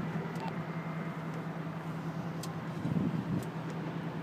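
Steady low mechanical hum of a fire department aerial ladder truck's running engine and hydraulic system, heard from the bucket at full extension, with a few faint clicks.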